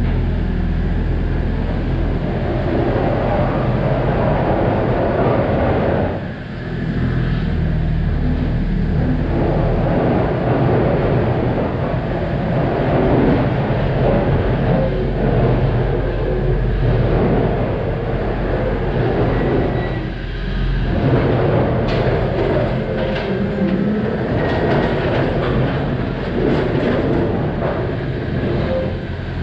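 Stripped Moskvich car body dragged along the ground on a tow rope, its bare metal shell rumbling and rattling, over the steady running of the towing off-road vehicle's engine. The noise dips briefly twice.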